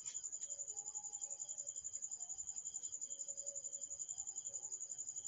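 A cricket chirping in a steady, high-pitched trill made of rapid, even pulses.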